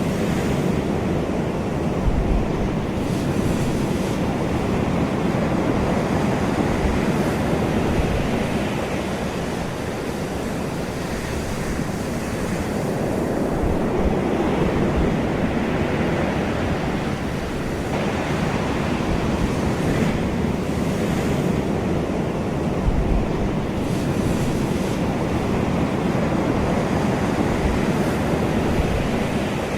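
Ocean waves breaking and washing on a shore, a continuous rush of surf that swells and eases every few seconds, with some wind noise.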